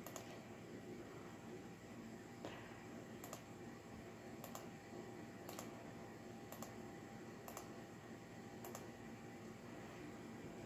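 Faint, sharp computer clicks, eight in all and roughly one a second after the first couple of seconds, over a faint steady low hum.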